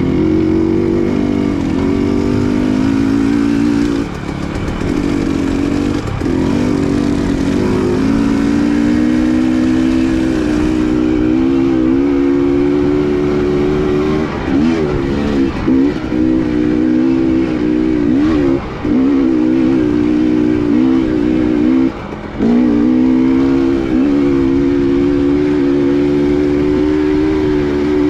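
Dirt bike engine running under throttle on a trail ride. Its drone drops and climbs back several times as the rider eases off and gets back on the gas.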